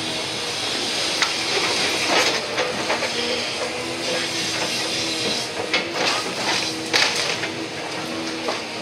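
Demolition-site noise: machinery running steadily under scattered knocks and clatter of broken wood and debris being handled.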